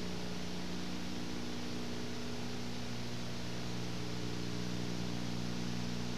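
Steady electrical hum with a constant hiss over it, unchanging throughout: a recording's background noise with no other sound.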